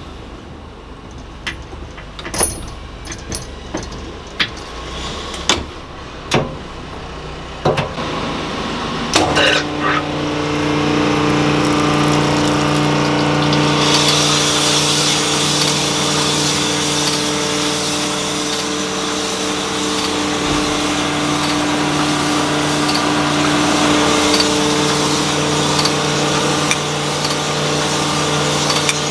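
Metal tool knocks and clicks as a cylinder machining setup on a Chevrolet 292 inline-six block is moved to the next bore, then the machine's motor starts, running with a steady hum, and about five seconds later a hiss of cutting joins it, the stones or cutter working the cylinder wall.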